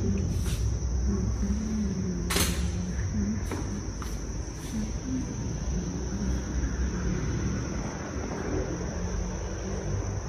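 Crickets trilling steadily over a low rumble, with one sharp click about two seconds in.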